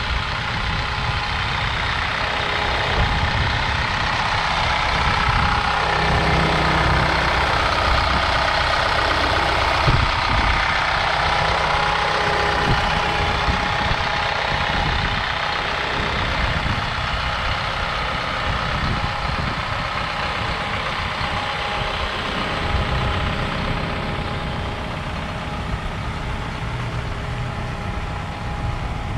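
Isuzu NPR HD box truck engine idling steadily with the cab tilted forward and the engine uncovered. It becomes a little fainter toward the end.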